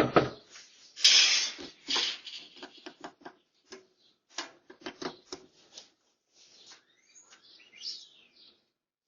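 A loud, harsh burst about a second in, then a run of short, irregular clicks and taps that thin out, and a few faint chirp-like sounds near the end.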